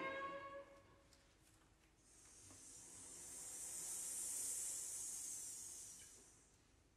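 The last ring of a bowed string chord dies away in the first second. A soft, airy hiss then swells up about two seconds in and fades out near the end: a noise effect made by the string quartet players in place of a pitched note.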